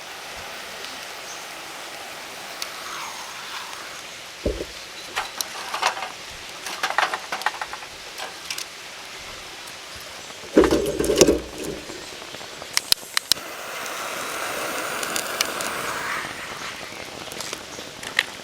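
Scattered clicks and knocks from handling kindling and a fire-starter cone while a wood fire is being lit. There is a thump about four seconds in, a louder clatter about ten and a half seconds in, and a steady hiss for about two seconds near the end.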